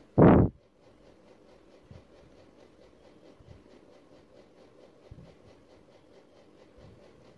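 Leonardt Principal EF pointed nib in an oblique holder scratching faintly across paper while letters are written, with a few soft taps. A brief loud thump sounds just after the start.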